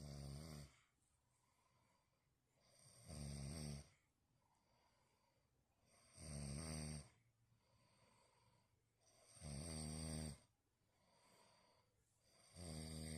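A sleeping man snoring: a pitched snore about every three seconds, each lasting about a second, with quiet between them.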